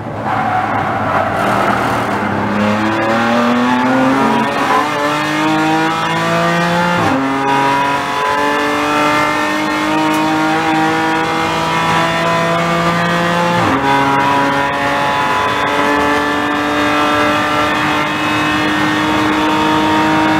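BMW M4 GT4's twin-turbo inline-six at full throttle, heard from inside the cockpit: the engine note climbs steadily through the revs, with two upshifts about seven and fourteen seconds in where the pitch drops sharply before climbing again.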